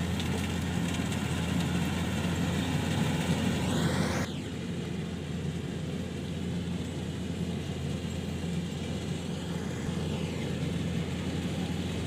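Kubota DC-105X combine harvester's diesel engine running steadily as it harvests rice, a continuous low hum. The higher-pitched noise in the mix drops away suddenly about four seconds in.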